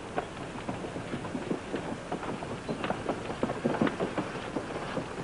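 A mule team's hooves clopping and a wagon's wheels rattling, many irregular knocks that grow busier and louder in the second half.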